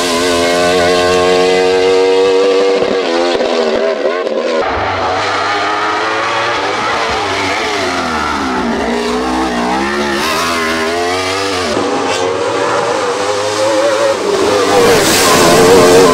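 Wolf GB08 Thunder sports-prototype race car at full throttle up a hillclimb, its engine screaming at high revs. The pitch drops and climbs again through several quick gear changes, and sags then rises again around the middle as the car passes close by.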